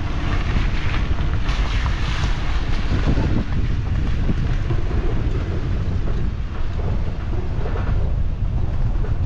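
Wind buffeting the microphone over the steady low rumble of a vehicle driving slowly.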